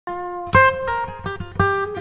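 Background music on acoustic guitar: plucked notes, with strong new notes struck about half a second in and again past the middle.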